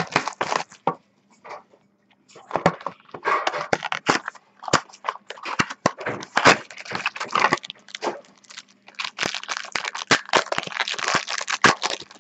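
Trading card packaging being handled and opened: dense, irregular crackling and crinkling of cardboard and plastic wrapping as cards are pulled out, with a brief lull about two seconds in.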